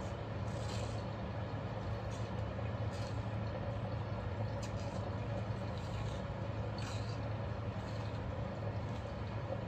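A steady low mechanical hum throughout, with a few faint, short, soft sounds as the membrane is peeled off raw liver by hand.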